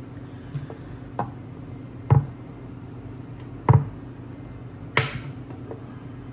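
Kitchen knife cutting through a freezer-chilled stick of butter and knocking down onto a wooden cutting board, five chops at uneven intervals, the last three loudest.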